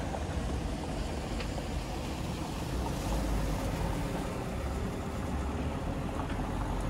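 Steady outdoor street ambience: a low rumble with an even hiss of noise over it.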